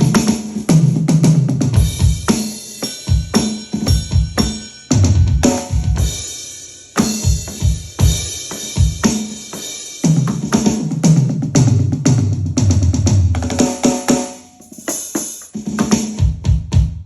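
Roland TD-6 electronic drum kit played through its sound module: kick, snare and cymbal hits in a steady groove, with several fills that run down the toms from high to low.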